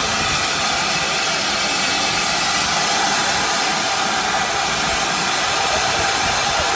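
Steam locomotive releasing steam: a loud, steady hiss.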